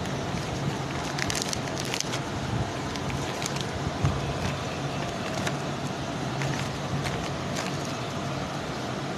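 Thin plastic sheet crinkling and crackling as it is folded and pressed down over kababs in a plastic tub, the sharpest crackles about a second and a half in. Under it runs a steady background hiss with a low hum.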